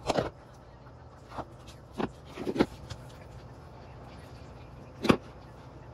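A bowl and a baby's hands knocking and slapping on a wooden floor: about five or six sharp knocks at irregular times, the loudest about five seconds in.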